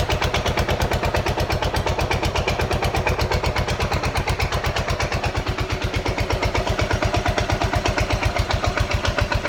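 Buell Blast's single-cylinder four-stroke engine idling steadily, a regular even thumping of about ten beats a second.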